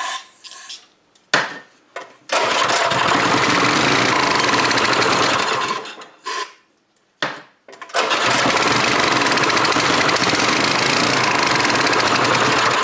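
A 196cc Honda-clone single-cylinder OHV small engine, pull-started and firing on carburetor cleaner sprayed into the intake, which the mechanic uses because its main jet is probably clogged. It runs for about three and a half seconds and dies, then is started again about two seconds later and runs on. A short aerosol spray hiss comes at the very start.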